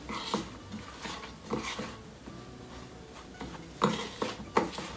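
Spoon stirring a crumbly corn-flour dough mix in a metal bowl: irregular scrapes and clinks against the bowl, with a few louder knocks near the end.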